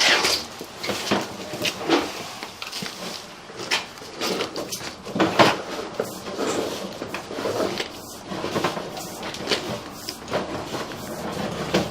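Sewer inspection camera head and push cable knocking and scraping along the inside of a freshly lined 3-inch drain pipe, in irregular clatters.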